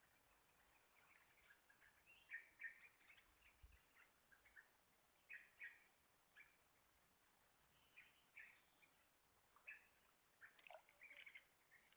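Near silence outdoors: faint, scattered short bird chirps over a steady high hiss.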